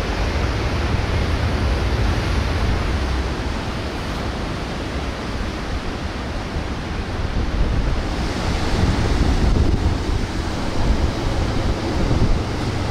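Strong wind buffeting the microphone over the steady wash of ocean surf, gusting harder about two-thirds of the way through.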